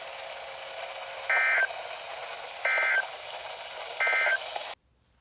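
Emergency Alert System end-of-message data bursts on NOAA Weather Radio: three short bursts of two-tone digital warble about 1.3 seconds apart over radio hiss, marking the end of the warning broadcast. The hiss cuts off suddenly near the end as the transmission drops.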